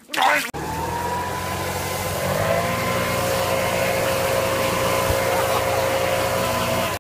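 Leaf blower running steadily at full speed: a steady engine note with a high steady whine and a rush of air, cutting in suddenly about half a second in.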